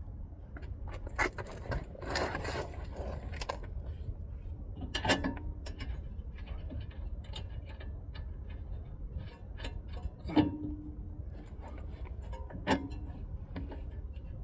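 Metal hand tools and hardware clinking and scraping as they are handled. A rustling scrape comes about two seconds in, and a few sharp metallic clinks with a brief ring come about five, ten and thirteen seconds in.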